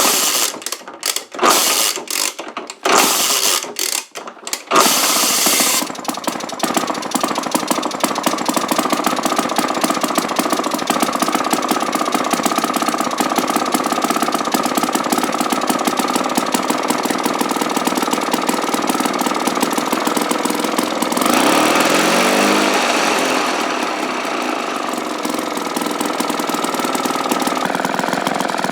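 1953 ATCO lawnmower's Villiers two-stroke engine being started: a few short sputtering bursts, then it catches about five seconds in and runs steadily. Its note briefly changes pitch about three-quarters of the way through, then settles slightly quieter.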